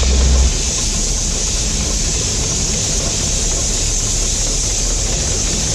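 Steam hissing out around the cylinders of a century-old Alishan Forest Railway steam locomotive, a loud steady hiss over a low rumble that cuts off suddenly at the end.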